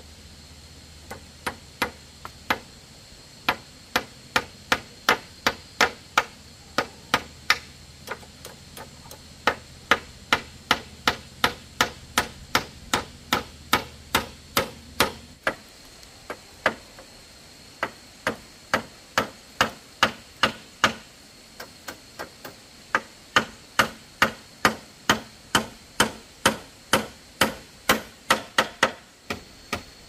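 Hammer driving nails into wood: long runs of sharp, evenly spaced blows, about two a second, with a few short pauses.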